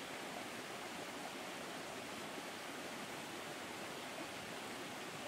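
Steady rushing of a flowing stream: an even wash of water noise with no distinct events.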